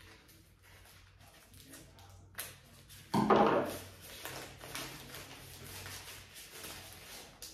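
Paper wrapping crinkling and rustling as a plant cutting is unwrapped by hand, with one loud knock about three seconds in as a pair of scissors is set down on the wooden table.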